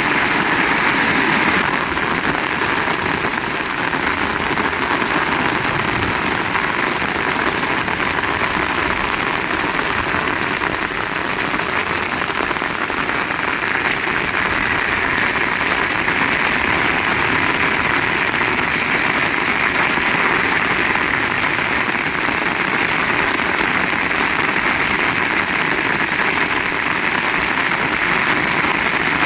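Heavy rain pouring steadily, a dense, even hiss without a break.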